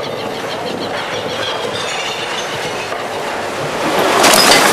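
Recycling-plant machinery clattering and rattling steadily, with faint squeaks, swelling into a louder burst of noise near the end.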